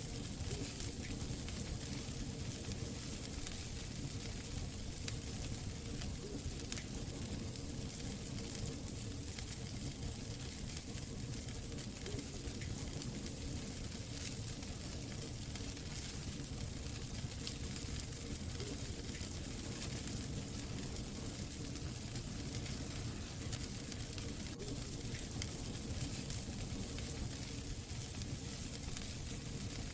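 Wood fire burning in a fireplace: a steady hiss and rustle of flames with frequent small crackles and a few louder pops from the burning logs.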